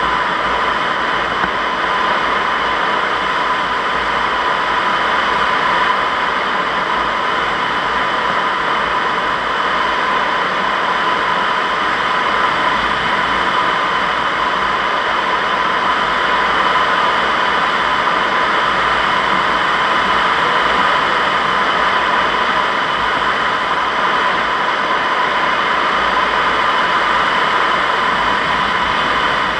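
Steady rush of airflow around the cockpit of a Zugvogel 3a sailplane in gliding flight, with a steady whistling tone running through it and no engine.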